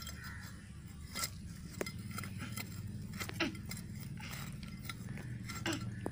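Small metal hand hoe chopping and scraping into dry, root-matted soil, giving a few scattered crunches and knocks over a low steady hum.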